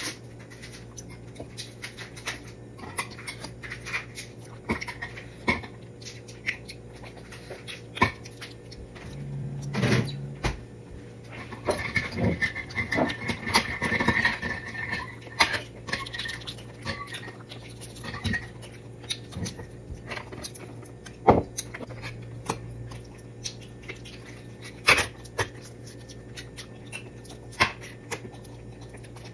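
Eating balut close to the microphone: repeated sharp clicks and taps of a spoon against eggshell and a plate, with chewing and mouth noises, loudest about halfway through. A steady low hum runs underneath.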